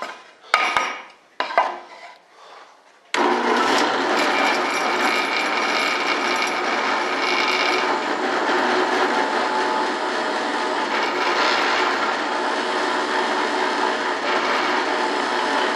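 Benchtop drill press: a few light knocks as the wooden block is set on the table, then about three seconds in the motor starts and runs steadily with a hum while the bit is fed down into the wood.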